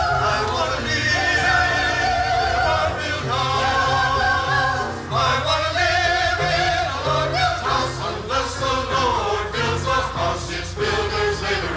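Background music: a song with several singing voices, holding long wavering notes over instrumental accompaniment with a steady bass line.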